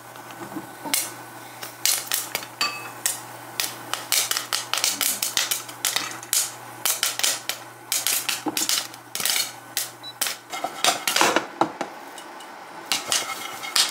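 Popcorn kernels popping in a covered nonstick wok: many irregular sharp pops, with kernels knocking against the perforated silicone lid and the pan.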